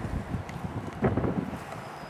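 Wind buffeting the camera microphone, with rustling and a few soft knocks from the camera being moved.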